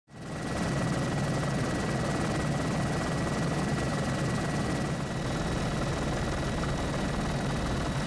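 Steady rotor and engine noise of a helicopter heard from on board, with a thin steady whine above it.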